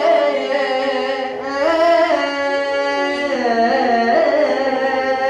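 A man singing unaccompanied-sounding long, held notes with gliding ornaments and a slight waver, in a loud, close voice.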